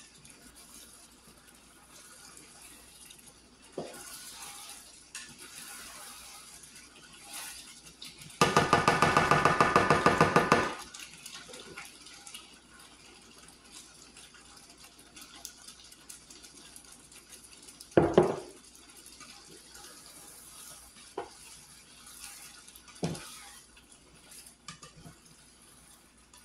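Ground beef simmering in a nonstick pan, a low steady sizzle. A plastic spatula stirs and scrapes it, knocking against the pan now and then, hardest about 18 seconds in. About eight and a half seconds in, a loud pulsing buzz lasts about two seconds.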